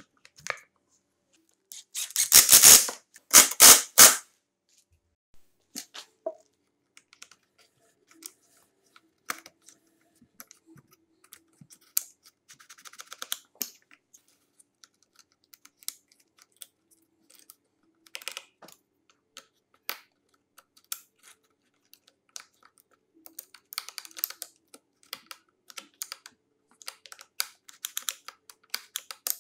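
Hard plastic chainsaw handle parts being fitted and handled: scattered light clicks and rattles, with two louder clatters about two to four seconds in.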